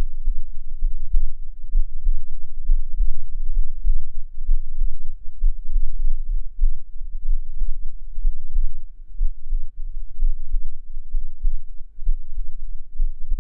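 A human heartbeat picked up close by a binaural microphone: a steady run of low beats, with no other sound.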